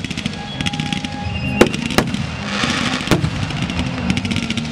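Fireworks finale: a dense barrage of crackling comets and shells, with continuous rapid crackle, sharp bangs about one and a half, two and three seconds in, and a hissing rush in between.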